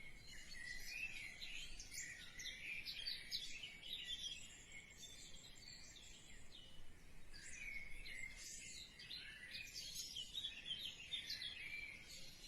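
Faint chirping and twittering of small birds, a dense run of short high calls going on throughout.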